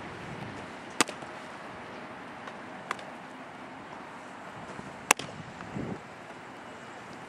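Baseballs smacking into a catcher's mitt: three sharp pops about two seconds apart, the middle one faintest, over steady wind noise.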